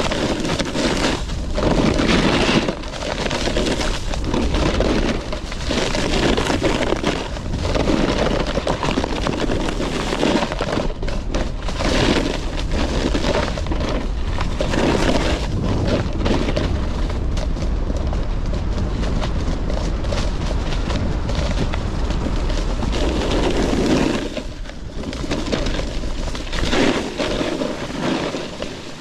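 Snowboard sliding downhill over snow, its edges scraping in uneven swells every second or few as it turns, with wind buffeting the microphone.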